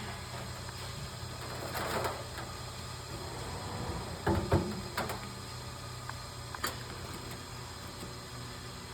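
Wire connectors being handled and pushed onto a tanning-bed ballast: a few scattered clicks and rustles, the loudest a couple of knocks about four and a half seconds in, over a steady low hum.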